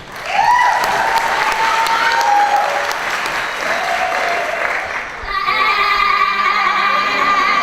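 Audience applauding and cheering, opening with a rising whoop. About five seconds in the clapping thins and a long held note with a slight waver comes in over it.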